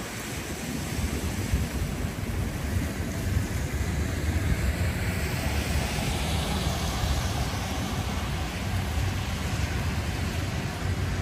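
Rain falling on an umbrella and a wet city street, a steady wash over a low traffic rumble. About halfway through, a passing vehicle's hiss on the wet road swells and fades.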